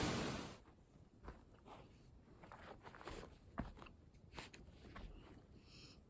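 Faint footsteps crunching on a rocky trail, irregular, after a steady rushing noise fades out in the first half-second.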